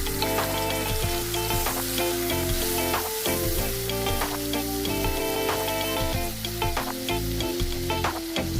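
Food sizzling as it fries in hot oil in a pan, with frequent clicks of a spatula stirring it against the pan, over background music with held notes.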